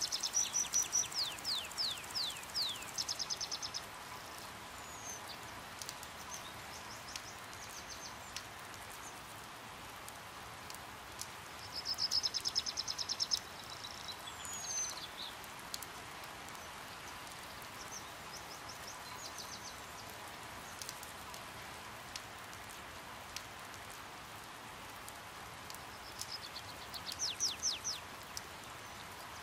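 Steady rain hiss, broken by three bursts of high, rapid chittering calls from hummingbirds at a feeder: one at the start, one about twelve seconds in and one near the end. Each burst is a quick run of chips and short falling twitters.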